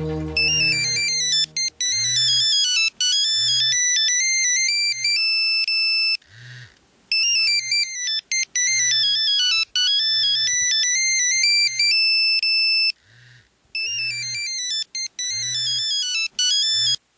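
Nokia mobile phone ringing with an electronic melody ringtone of quick stepping beeps, repeating with two brief pauses, and a short low buzz pulsing under it about once a second. The ringing cuts off abruptly at the end as the call is answered.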